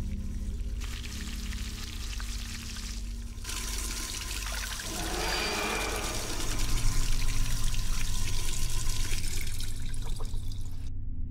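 Water running or pouring in a steady stream that grows louder about halfway through and cuts off sharply near the end, with a steady low drone beneath it.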